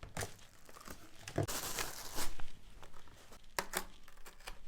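Packaging crinkling and tearing as vacuum parts are unwrapped, with a rustling stretch about a second and a half in and a few sharp handling clicks.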